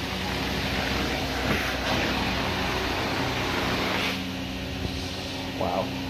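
Carpet-cleaning extraction equipment running: a steady hum under a rushing hiss of vacuum suction, swelling briefly twice as the wand is worked across the carpet.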